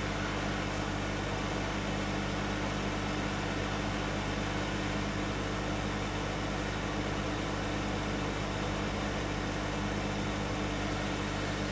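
Steady fan-like whir with a low electrical hum under it, unchanging throughout.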